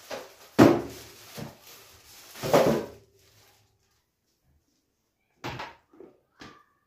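Household handling sounds: three heavy knocks over a plastic-bag rustle in the first three seconds, then a pause and a few light clicks and taps near the end.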